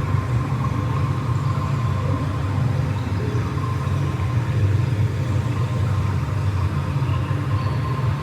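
Steady low rumble with a faint steady tone above it, unchanging throughout.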